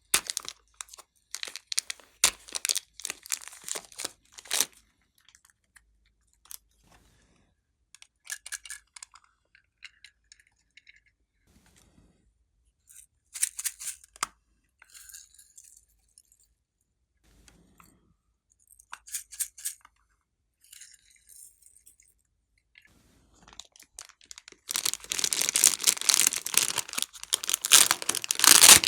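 Hands squishing and stretching glossy slime, making sticky, crackling clicks in short bursts with pauses between them. The crackling becomes continuous and louder about 25 seconds in.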